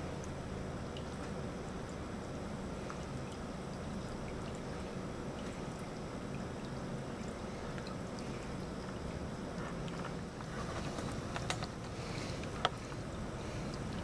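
Small tabletop mist fountain running: a steady low hum with water trickling and bubbling. A few sharp clicks come near the end.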